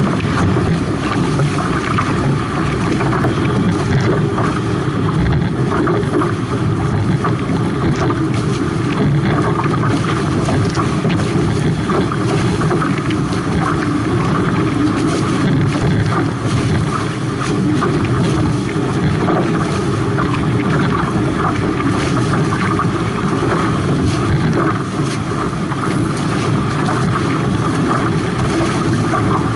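Steady rush of water and spray along a Hobie 18 catamaran's hulls sailing at about 14 to 16 mph, mixed with loud wind noise on the microphone.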